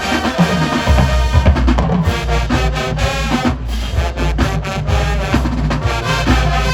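High school marching band playing: loud, sustained brass chords over heavy, pulsing bass drums and percussion.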